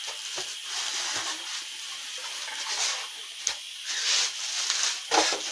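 Clear plastic bag wrapped around a new printer crinkling and rustling in irregular spurts as hands grip and pull at it.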